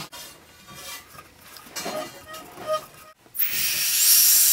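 Compressed gas hissing out of a cylinder regulator's hose into a rubber balloon, starting suddenly about three seconds in and holding steady. Before it, quieter rubbing and small clicks from hands working the cylinder valve and regulator.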